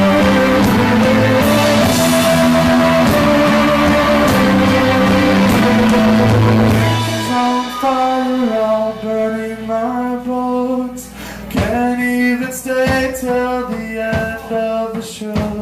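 Live rock band playing loud, with a full, dense sound of guitars and drums. About seven seconds in it drops to a sparser, quieter passage of separate held notes, broken now and then by sharp drum hits.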